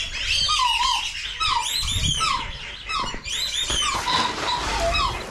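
A crowd of birds calling together: a swooping whistled call repeated over and over, over a dense chatter of high chirps and peeps.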